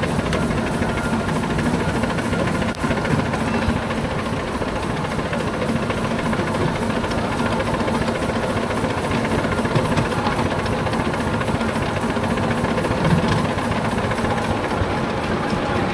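Miniature Romulus-type steam locomotive working hard up a gentle gradient: a steady run of exhaust beats with steam hiss.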